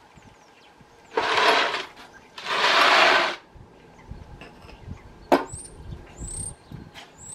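Two long scrapes as the blue motorcycle turntable unit is dragged out across concrete paving slabs, then a sharp click. Birds chirp near the end.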